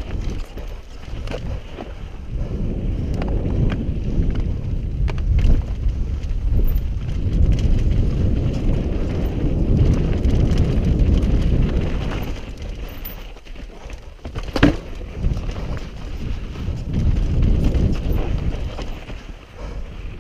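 Mountain bike descending a steep, rocky, sandy trail: tyres rolling and crunching over dirt and loose rock, with a steady patter of knocks and rattles from the bike and wind rushing over the helmet-mounted microphone. A single sharp knock about two-thirds of the way through is the loudest hit.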